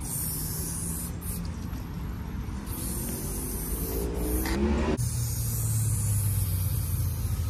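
Aerosol spray paint can hissing in several separate bursts. An engine rises in pitch about halfway through, followed by a low steady engine hum.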